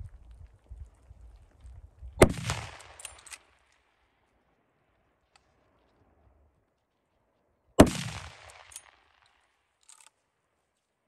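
Two rifle shots from a .300 Winchester Magnum, about five and a half seconds apart, each followed by an echo that dies away over about a second. A faint click comes near the end.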